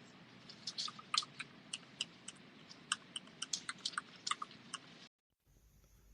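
Typing on a mechanical keyboard with Gateron Milky Yellow Pro linear switches: irregular keystroke clacks for about four seconds, then the sound cuts off suddenly.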